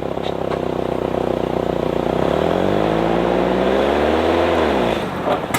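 Engine of a Bombi, a small tracked Bombardier snow vehicle, running under way while grooming snow trails. Its pitch climbs steadily for a couple of seconds, then falls off near the end and cuts off suddenly.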